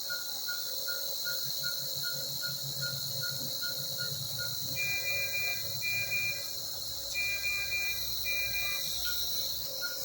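NICU bedside monitor beeping regularly, about three short beeps a second, then sounding four longer, higher alarm tones about halfway through before the regular beeping returns near the end, over a steady hiss.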